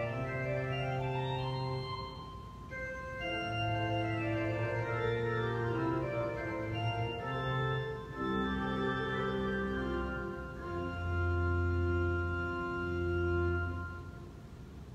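A 46-rank church pipe organ plays slow, sustained chords over deep bass notes. It closes on a long held final chord that is released about a second before the end.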